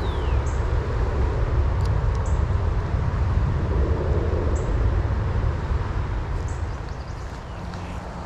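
Steady rushing of creek water with a deep, fluctuating rumble. Short high bird chirps recur every couple of seconds, and a brief falling whistle sounds at the start.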